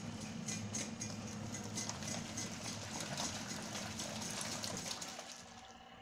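GeePas 3.5 kg compact top-loading washing machine agitating a sudsy load: the wash motor hums under churning, sloshing water. The agitation stops about five seconds in.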